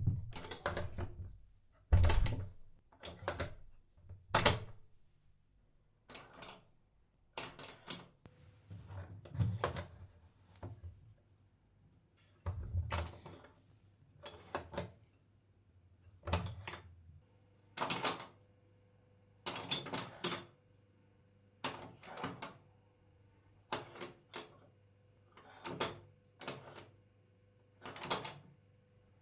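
A door latch worked open and shut over and over: about twenty short clusters of metallic clicks and clacks, irregularly spaced roughly a second apart, some coming in pairs.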